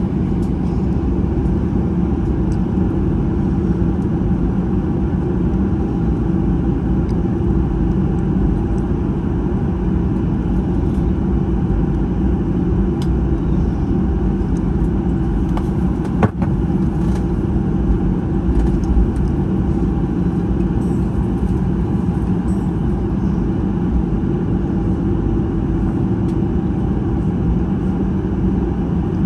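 Cabin noise of a Boeing 737-800 taxiing, heard from a window seat over the wing: the steady low rumble of its CFM56-7B engines at idle and the airframe rolling, with several steady hums in it. A single sharp click about 16 seconds in.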